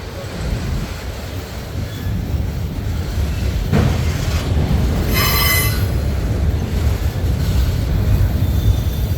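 CSX freight train rolling past with a steady low rumble of cars on the rails, and a brief high-pitched wheel squeal about five seconds in.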